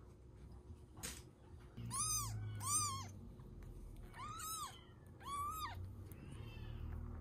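Very young bottle-fed kitten mewing: four high-pitched cries, each rising then falling in pitch.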